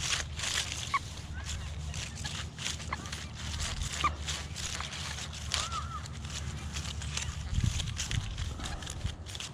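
XP Deus metal detector with a high-frequency coil sounding short pitch-mode target tones that swoop up and down, a few separate beeps and a double warble about six seconds in, signalling targets in mineralised 'hot' soil. Under them runs a string of short crunching and rustling noises.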